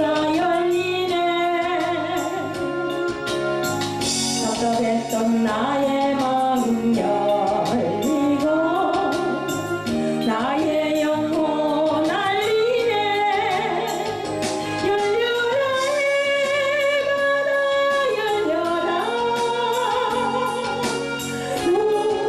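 Korean gospel praise song: a wavering lead melody with vibrato and glides over steady backing accompaniment.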